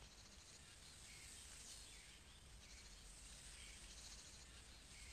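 Near silence: faint outdoor ambience with insects chirping in short repeated trills.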